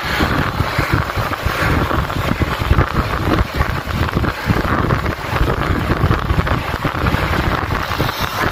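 Rushing wind buffeting the microphone of a bicycle moving at speed, a loud, steady rumble.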